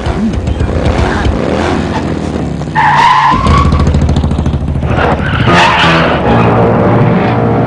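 Cartoon sound effects of a racing car's engine running, with a brief tyre squeal about three seconds in, after which the engine drone grows louder. Background music plays along.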